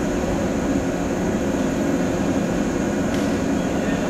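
A JR 115 series electric train standing at the platform, its on-board equipment giving a steady drone with a low hum. There is a faint click about three seconds in.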